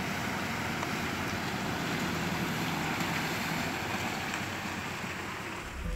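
A Mitsubishi SUV driving slowly through a flooded street, its engine and wheels in the water, under a steady hiss with wind buffeting the microphone. It eases off a little near the end as the vehicle passes.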